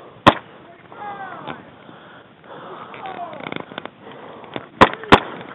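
Airsoft gunfire: a single sharp pop shortly after the start, then two more in quick succession near the end, against faint distant shouting.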